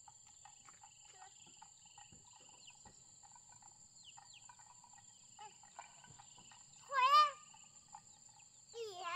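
Crickets and other insects chirring steadily in several overlapping trills. Two short high calls cut across it, about seven and nine seconds in.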